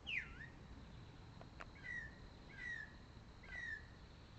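A single bird singing: a swooping call that falls and rises again, then three short falling notes about a second apart. A sharp click comes just before the second phrase, and a faint steady high tone runs underneath.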